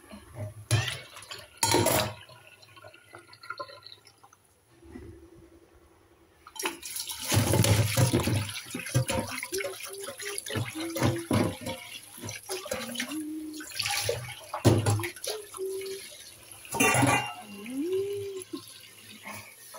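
Water splashing into a stainless steel kitchen sink in bursts, with knocks and short squeaks from a metal cooking pot being handled. The longest and loudest run of splashing comes about a third of the way in.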